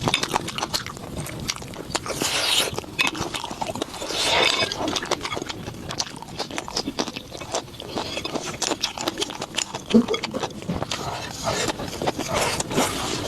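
A person eating close to the microphone: steady wet chewing, lip smacks and crackly bites, with a couple of longer sucking swells and one sharp click about ten seconds in.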